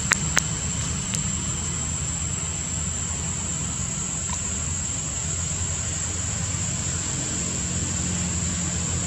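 Steady outdoor background: a low rumble under a constant high, thin whine, with two or three sharp clicks in the first second or so.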